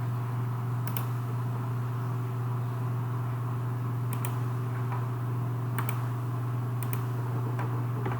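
Steady low hum with about five short, sharp clicks spread through it, the first about a second in.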